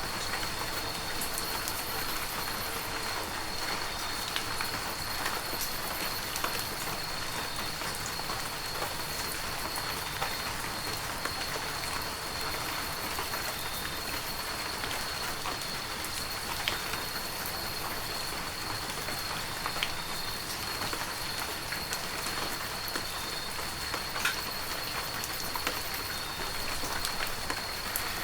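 Heavy rain falling steadily, an even hiss with scattered sharp drop ticks, over a thin steady high-pitched tone.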